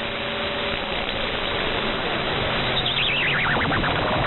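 Radio receiver tuned to 27.025 MHz on the 11-meter band, giving a steady hiss of band noise with faint steady whistle tones. About three seconds in, a whistle slides down in pitch as a drifting carrier sweeps across the receiver's passband.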